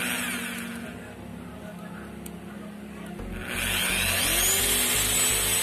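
Electric drive motor of a turning rig starting about three seconds in, its whine rising in pitch as it spins up the rewound angle grinder armature and then running steadily with a hiss and a low throb. A short hiss comes just at the start.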